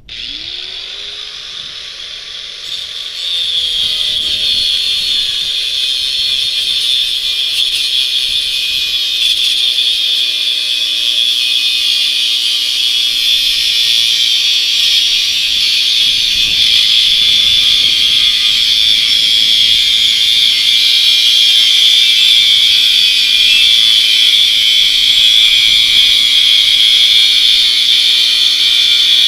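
Angle grinder spinning up, then its cutoff wheel cutting into a steel bicycle frame tube: a loud, steady high grinding hiss over the motor's hum, which dips slightly as the wheel bites in about three seconds in.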